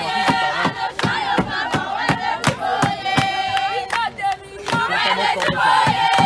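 A crowd of women singing and calling out with high, shrill held cries, typical of ululation, over steady hand clapping at about three claps a second.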